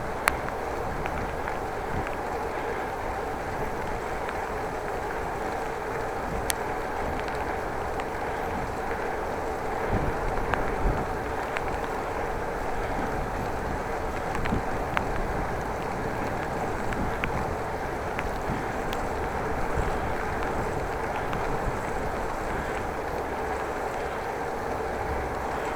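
Steady rush of wind and tyre noise from a bicycle being ridden, with scattered light ticks.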